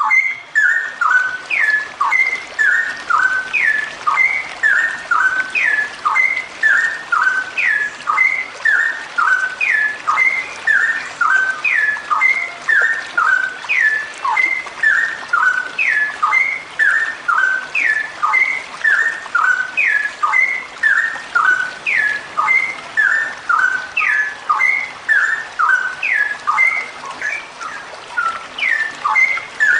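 Female straw-headed bulbul (cucak rowo) calling continuously. The same short phrase of clear whistled notes, several of them falling steeply, repeats over and over without a pause.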